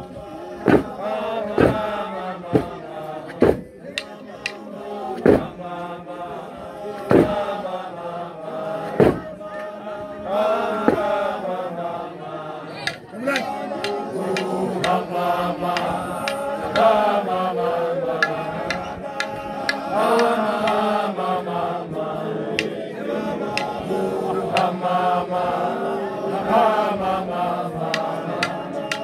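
A group of voices chanting a song together, with sharp percussive beats, most regular in the first half.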